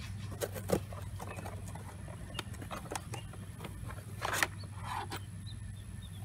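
Cardboard box being opened by hand: tape and flaps torn and the cardboard handled, in a series of short scrapes and rustles, with a louder, slightly longer one about four seconds in as the flaps come open. A steady low hum runs underneath.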